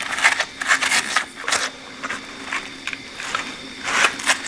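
Wet rubber-gloved hands handling and turning a cast-iron pipe vise fresh out of an electrolysis bath: irregular rubbing and scraping of glove on wet metal, bunched in the first second and a half and again near the end, over a faint steady hum.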